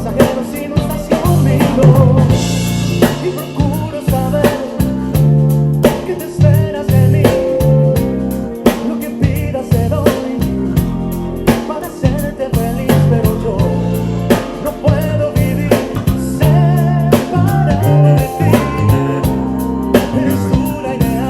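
Ken Smith CR5 electric bass playing a bass line with prominent low notes, over a backing track with a drum kit and singing.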